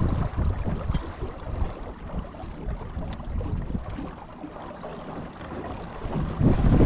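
Wind buffeting the microphone and water washing along the hull of a Hobie Holder 14 sailing dinghy under sail. The wind rumble eases in the middle and gusts back up near the end.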